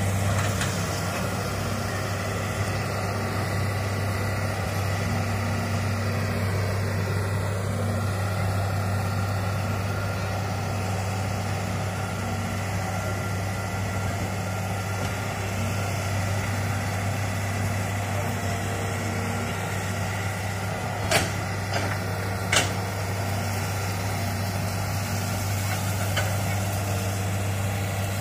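Crawler excavator's diesel engine running steadily as the machine works the ground, with two sharp knocks about three quarters of the way in.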